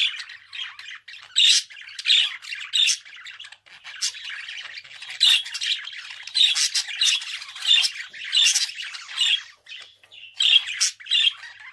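Budgerigar calling in a quick, irregular run of short chattering calls, several a second, with brief pauses between bouts.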